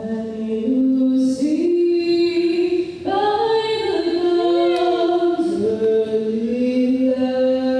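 Vocal jazz ensemble singing a cappella, holding long notes and stepping to new pitches a couple of times.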